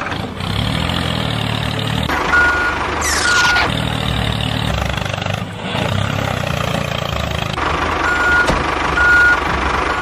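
Dubbed-in heavy vehicle sound effect: a diesel engine running steadily, with pairs of short high reversing-style beeps and a fast falling sweep, the cycle repeating about every six seconds.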